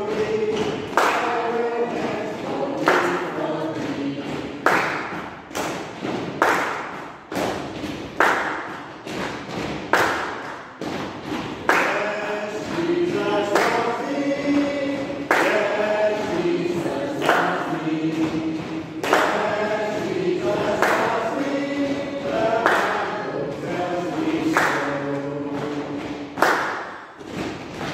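A group of people singing together, unaccompanied, with loud thumps struck in time with the song roughly every second or two.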